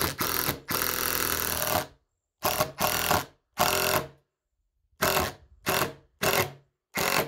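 Cordless drill driving 3-inch deck screws into rough-cut lumber, in eight separate bursts of the motor: a long run of about a second near the start, two medium ones, then four short, quick trigger pulls near the end.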